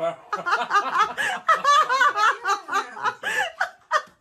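People laughing hard: rapid, high-pitched giggles and snickers, more than one voice overlapping.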